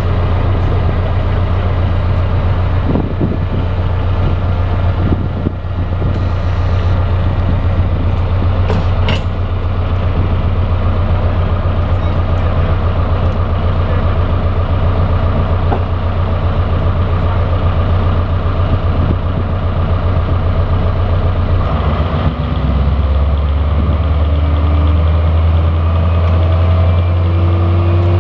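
Diesel locomotive engine running with a steady deep hum. About three-quarters of the way through the note shifts lower and a rising whine comes in and keeps climbing to the end.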